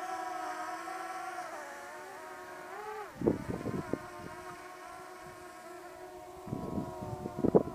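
Small quadcopter drone's propellers whining steadily, the pitch dipping briefly and recovering about three seconds in as it manoeuvres, then fading somewhat. From about three seconds on, irregular gusts of wind buffet the microphone.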